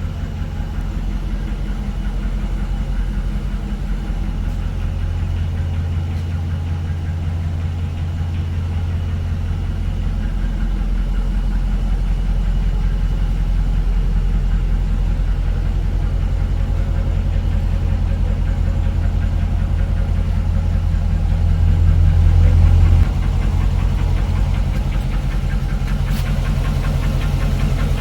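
Dodge 5.7 L Hemi V8 idling with a ticking noise, which goes away when the idle is raised. With the lifters checked and found good, the tick was traced to cylinder damage from poor maintenance and engine abuse. The sound steps down slightly about 23 seconds in.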